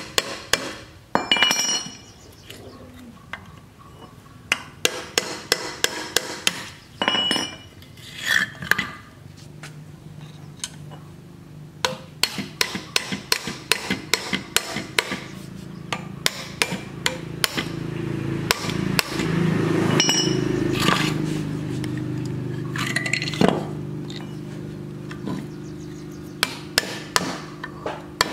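Hammer striking the end of a screwdriver set against a rusted electric motor's metal casing: runs of sharp metallic taps, several a second, with pauses between. A steady low hum runs beneath the strikes through the second half.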